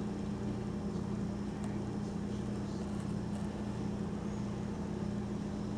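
A steady low mechanical hum holding one constant tone, with a fainter pulsing tone beneath it.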